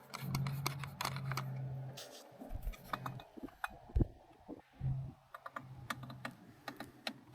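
Light, irregular metal clicks and taps as a bolt is fitted and started into a Mercury 4000 series remote control housing, over a faint low hum.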